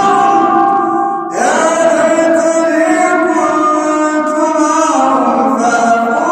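Melodic Quran recitation in drawn-out tajweed style: one reciter's voice holds long, slowly bending notes, breaks off briefly about a second in, then rises into a new long-held phrase.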